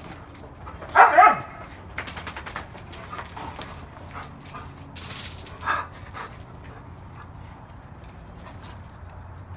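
A Doberman barks twice in quick succession about a second in, then gives a shorter, quieter bark a little past the middle.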